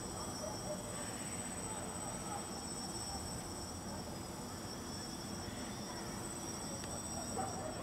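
Steady, unchanging high-pitched insect chirring from crickets, over a low, even rumble of background noise.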